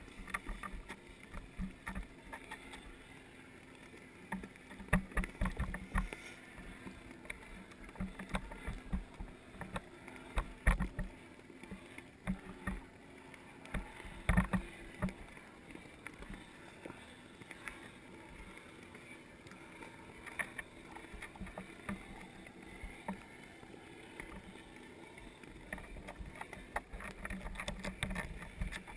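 Underwater ambience through a submerged camera's housing: irregular clicks and low muffled knocks over a faint steady hum, with louder clusters of knocks about five, eleven and fourteen seconds in.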